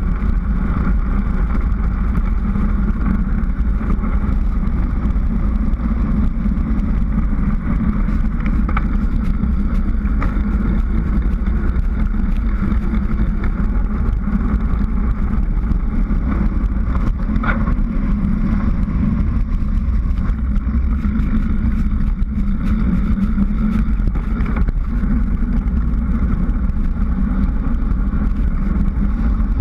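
Steady rush of wind on the microphone and tyre noise on asphalt from a bicycle coasting fast downhill on a paved road, with a couple of brief clicks partway through.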